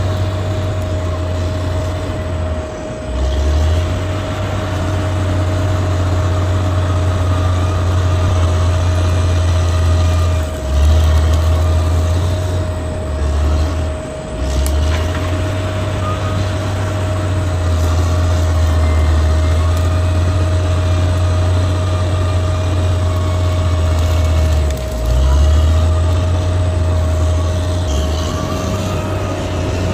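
Bulldozer's heavy diesel engine running under load, a deep steady drone that drops briefly a few times, with a constant thin whine above it.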